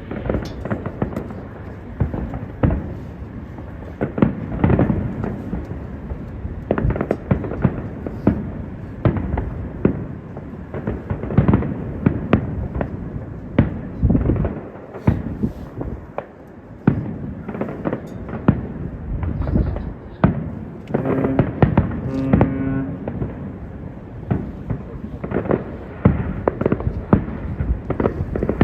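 Fireworks display: aerial shells bursting one after another in a dense, unbroken barrage of booms.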